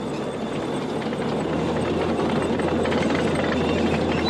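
Steady rumble of wheeled armoured vehicles driving, engine drone with road and mechanical noise, growing slightly louder partway through.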